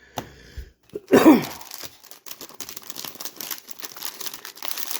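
A short throat noise about a second in, then the plastic wrapper of a baseball card rack pack being torn and crinkled as the pack is opened, a dense run of crackling.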